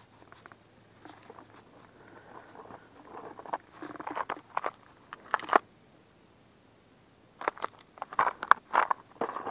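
Hands handling a white plastic lure case and a fishing lure: quick clicks, taps and rustles of plastic and metal. They come in two uneven bursts, one around the middle and one near the end.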